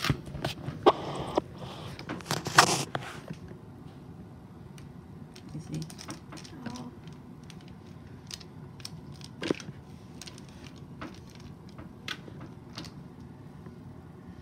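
Aluminium foil on a baking tray crinkling and clattering during the first three seconds or so, then only light scattered clicks and taps as the meatballs are brushed with oil.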